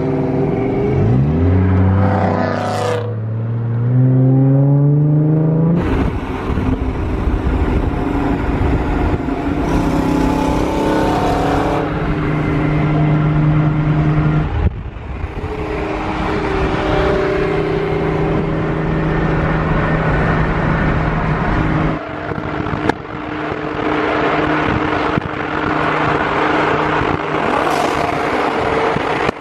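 Car engine heard from inside the cabin, pulling away with its pitch climbing as it revs up, then cruising at highway speed with a steady drone over road noise. The sound jumps abruptly a few times along the way.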